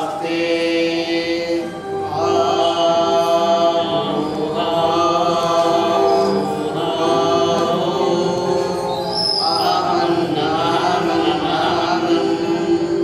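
Devotional singing in long, held, chant-like notes over a steady drone.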